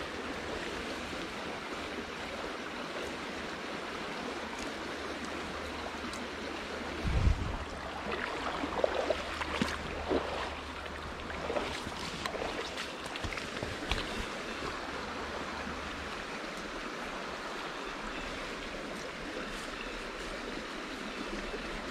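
Steady rush of a rain-swollen creek flowing past. A single thump comes about seven seconds in, followed by scattered short knocks and rustles over the next several seconds.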